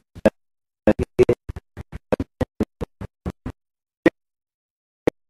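Digital audio dropout: a man's recorded voice chopped into tiny stuttering fragments with dead silence between them, a quick run of about twenty blips for three and a half seconds, then two lone blips about a second apart. It is a playback or transfer glitch, with the picture frozen on the same frame.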